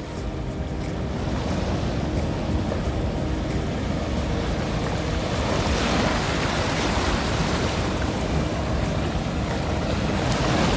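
Small waves washing up and breaking on a sandy shore, swelling a little about halfway through, with wind buffeting the microphone.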